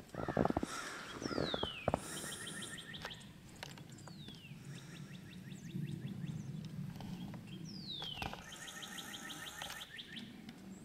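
A songbird sings the same phrase three times, a few seconds apart: a quick falling whistle followed by a fast, even trill. A faint steady low hum runs underneath, and a rumbling thump comes in the first two seconds.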